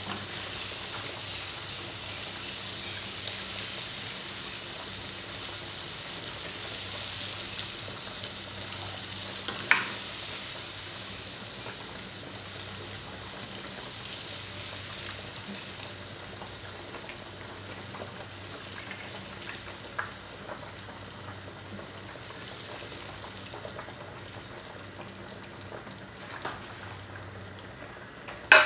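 Breaded shrimp deep-frying in hot oil: a steady sizzle that slowly dies down as the shrimp are lifted out of the oil. A few sharp clicks of the wire strainer against the pan, about ten and twenty seconds in.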